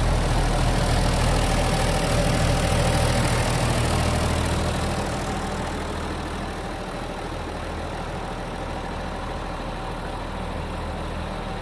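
John Deere 3650 tractor's six-cylinder diesel engine idling steadily. It is heard first from inside the cab and then from beside the tractor, quieter from about five seconds in.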